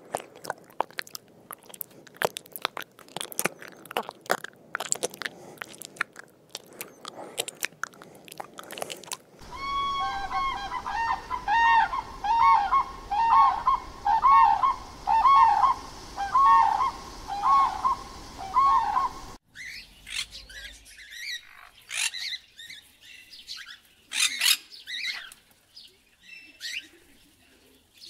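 Animal calls in three cut-together segments. First come dense quick clicks and chirps. About nine seconds in, a long run of arching pitched calls with clear overtones follows, repeated about twice a second. Near twenty seconds it cuts to scattered higher chirps.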